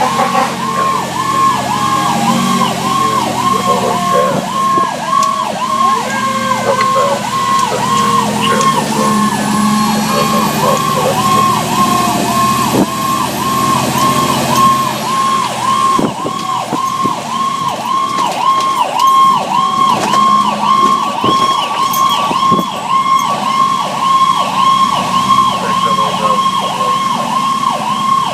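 A 2008 Spartan Gladiator fire engine's siren wailing in a fast, steady yelp, about two to three rises a second, while the engine runs on an emergency response. During the first several seconds a slower tone glides down in pitch under the yelp.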